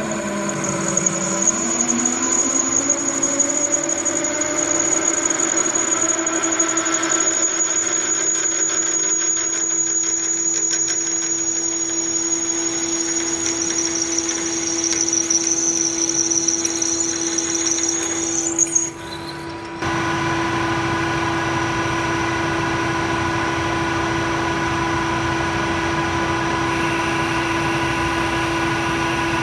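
Metal lathe drilling into a spinning workpiece with a large twist drill: a steady high-pitched squeal over the hum of the lathe, wavering and rising toward the end of the drilling. About two-thirds of the way in it changes to the steadier sound of the lathe turning while a boring bar cuts inside the bore.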